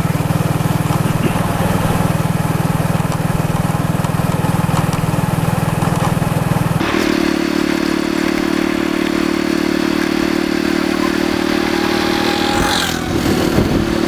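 Motorcycle engine running steadily while riding, over a rushing hiss. About seven seconds in the engine note changes abruptly to a higher, steady hum.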